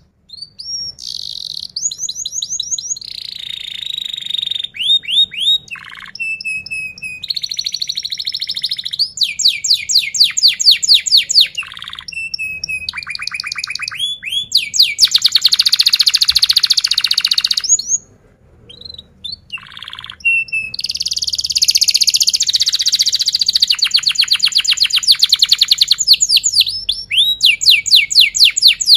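Domestic canary singing in full voice: long phrases of very rapid trills and rolls, with short whistled glides between them. The song breaks off for about a second near the start and again about two-thirds through.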